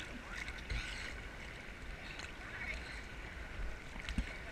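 Sea water sloshing and splashing around a camera held at the waterline in choppy water, with a couple of low thumps, one about a second in and one near the end.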